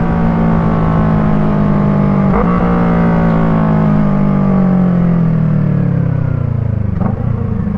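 2024 Yamaha MT-03's parallel-twin engine running through an Arashi aftermarket exhaust fitted with a dB killer. The engine note is steady, with its pitch slowly falling as the revs drop, and there is a brief break in the note about two and a half seconds in.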